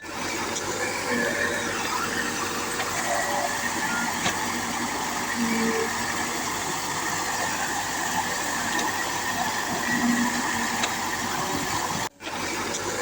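Steady diesel engine noise of a backhoe loader and tractors working, without pauses. The sound cuts out for a moment about twelve seconds in.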